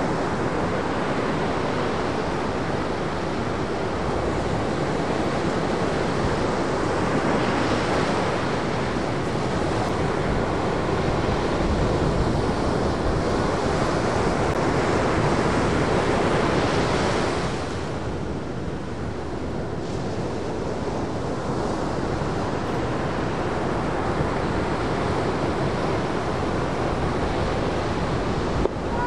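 Ocean surf breaking, a continuous roar of waves that eases for a couple of seconds a little past halfway, with wind buffeting the microphone.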